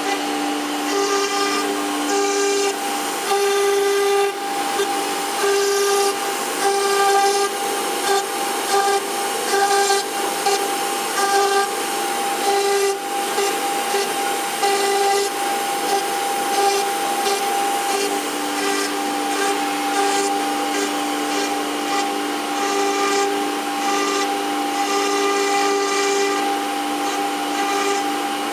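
JCUT 1330 CNC wood router running over a wood panel: a steady spindle whine, with lower tones switching on and off every half second or so as the axes move, over a steady hiss of dust extraction.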